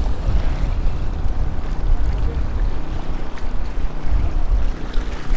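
Wind buffeting the microphone in a low, uneven rumble, over waves washing against the jetty rocks.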